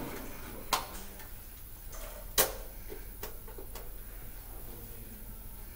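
Sharp plastic clicks and knocks as a filled syringe is seated and clamped into a syringe pump's holder: two louder clicks, the first under a second in and the second a little past two seconds, then two fainter ones.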